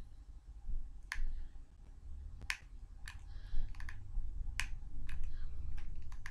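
Small hot glue gun worked by hand, giving sharp clicks as the trigger is squeezed to feed glue: three loud clicks and several fainter ones, over a low rumble.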